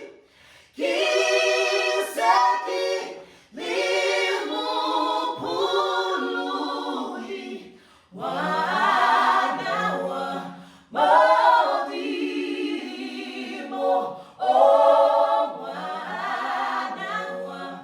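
Unaccompanied gospel singing in close multi-part harmony, several voices moving together in about five sung phrases separated by short breaths.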